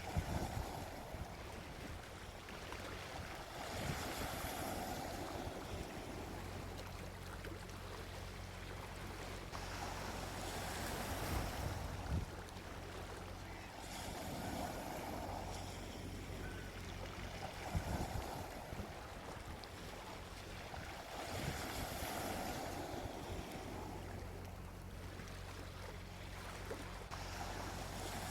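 Gentle ocean waves breaking and washing onto a beach, the surf swelling and fading every few seconds, over a steady low rumble.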